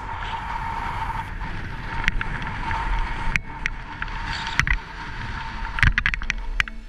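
Snowboard sliding and carving through fresh snow: a continuous rushing scrape of the board over the snow, with sharper edge scrapes about two, three and a half, four and a half and six seconds in, and wind rumbling on the microphone.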